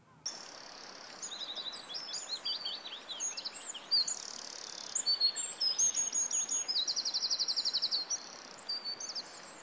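Several small birds singing, with many short high chirps and whistles and a fast trill of rapid repeated notes about two-thirds of the way through, over a faint steady hiss.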